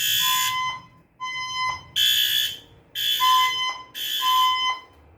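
Fire alarm sounding a harsh, repeating horn-like tone in pulses of just under a second, about one a second, with a purer tone pulsing along with several of them.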